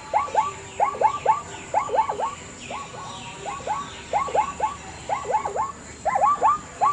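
Zebra calling: short, high yelping barks in quick clusters of two to four, about one cluster a second.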